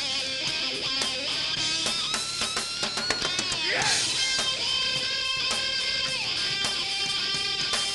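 Live heavy rock band playing an instrumental passage: an electric guitar plays a lead of held, bending notes and quick runs over drums, with a swooping dive in pitch near the middle.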